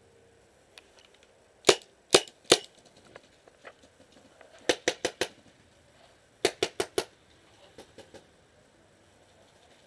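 Paintball pistol firing in three volleys: three shots about half a second apart, then a quick string of four, then another string of four. Fainter pops of other paintball markers fire further off in between.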